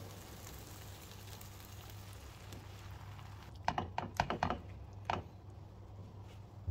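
Liquid being poured into a hot non-stick frying pan of shredded meat, with a faint steady sizzle. About three and a half seconds in, a silicone spatula stirring the mixture clicks and taps against the pan in a quick cluster, with one more tap a second later.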